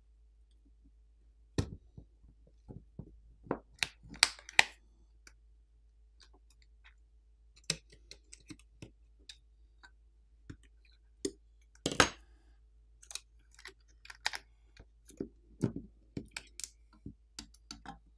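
Scattered small clicks and taps of a metal pry tool and fingers on a smartphone's aluminum midframe and housing as the midframe is pried loose and lifted out. The loudest sharp clicks come about a second and a half in and again about twelve seconds in.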